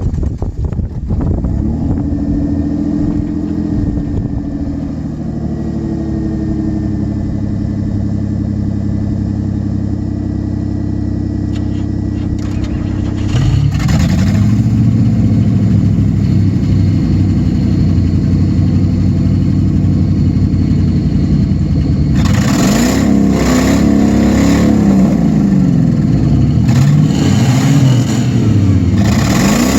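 Scrap car engines being deliberately over-revved: a steady engine note for the first dozen seconds, then the revs climb and fall again and again, louder from about two-thirds of the way in.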